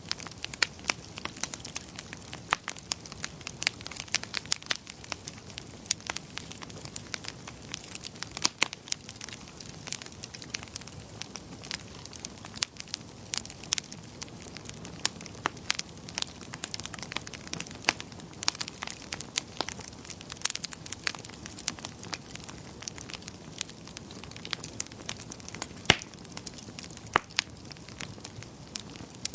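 Wood fire crackling steadily, with irregular sharp pops and snaps over a soft low rush, and a louder pop about 26 seconds in.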